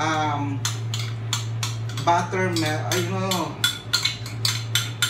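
A spoon clinking against a small bowl in quick taps, about four a second, as it knocks and scrapes an ingredient out into a stainless steel mixing bowl; the taps pause briefly about two seconds in, then start again.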